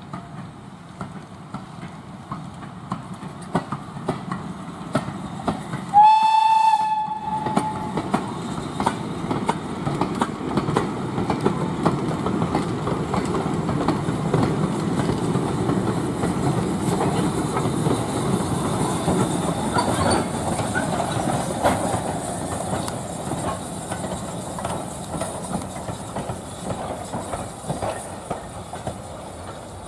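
A BR Standard Class 4 2-6-0 steam locomotive gives one short whistle blast about six seconds in, then passes hauling a short goods train, its wheels clicking over the rail joints and wagons rattling, loudest midway and slowly fading.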